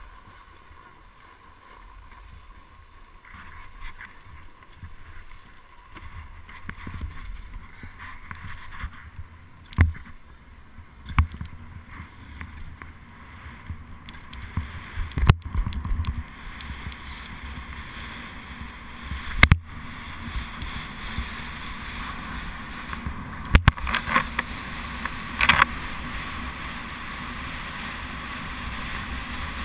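Skis sliding and scraping over groomed snow: a steady hiss that gets louder as the skier picks up speed, broken by a few sharp knocks.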